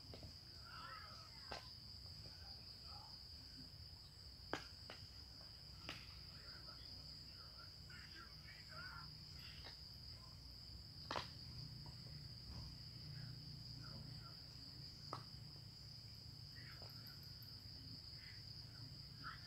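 Faint, steady, high-pitched insect chirring, with a few sharp clicks and faint scattered chirps at uneven intervals.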